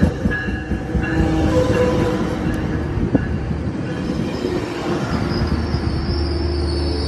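Metrolink train of Hyundai Rotem bilevel coaches rolling slowly past as it brakes into the station, wheels rumbling on the rails. A high wheel squeal comes in near the end as it slows.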